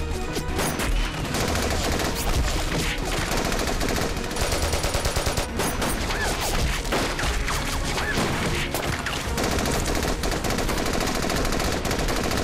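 Dense, continuous gunfire from many guns at once, shots overlapping without pause, in a battle scene's sound track.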